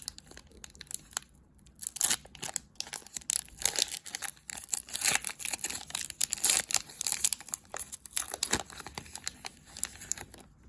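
Wrapper of a hockey card pack crinkling and tearing as it is ripped open, in irregular crackling bursts.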